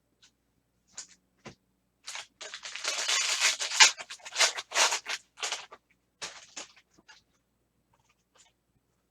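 Baseball card pack wrapper and cards being handled: a few light clicks, then several seconds of dense crinkling and rustling that tails off into faint ticks near the end.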